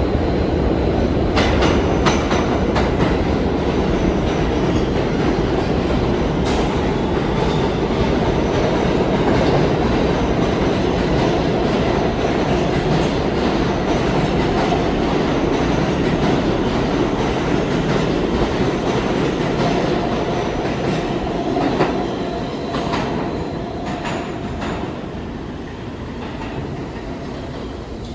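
New York City subway train running, its wheels clacking over the rail joints. The noise eases off over the last several seconds as the train slows.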